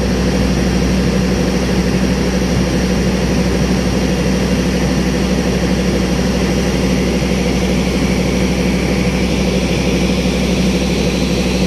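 Diesel-electric locomotive engine idling close by: a loud, steady drone with a low hum.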